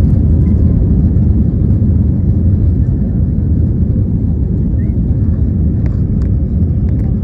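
Airliner engine and airflow noise, a steady low rumble at constant level, with a few faint clicks near the end.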